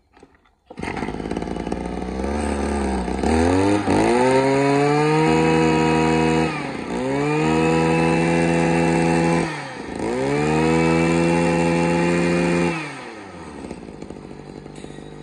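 Mitsubishi TL23 brush cutter's small two-stroke engine starts about a second in and idles. It is then revved up and held at high speed three times, its pitch rising and falling with each rev, and settles back to idle near the end. It runs cleanly, which the seller calls very okay.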